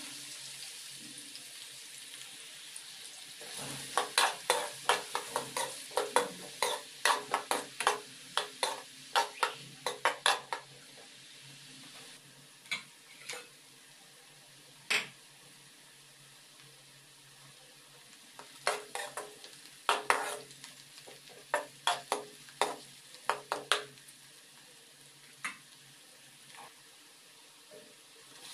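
Chopped onions sizzling in hot oil in an aluminium kadai, with a spoon scraping and knocking against the pan in two long spells of quick stirring strokes and a few single knocks between them.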